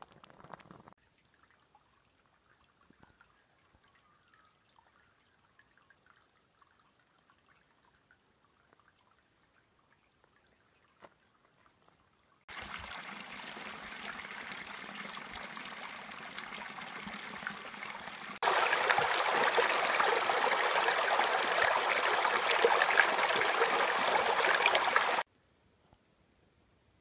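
Shallow creek water trickling over stones. It starts suddenly about twelve seconds in, jumps much louder and closer about six seconds later, and stops abruptly a couple of seconds before the end. The first twelve seconds are near silence.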